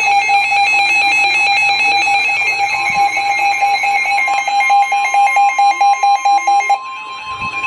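Emergency Alert System alert tone: a loud, steady electronic alarm of held tones, the signal that a Severe Thunderstorm Warning is being broadcast. It drops in level about seven seconds in.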